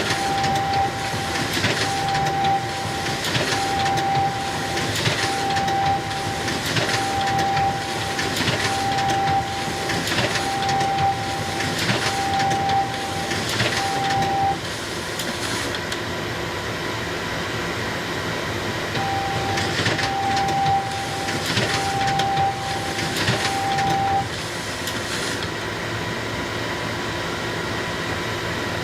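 Xerox photocopier running, cycling about once a second, each cycle with a short steady tone and a burst of mechanical noise. The cycling stops about 14 seconds in, returns for about five seconds near 19 seconds, and then only the machine's steady running hum remains.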